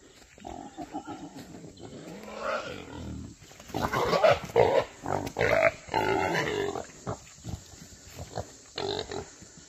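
Wounded feral hog, shot and down, grunting and squealing in a run of rough, irregular calls, loudest in the middle.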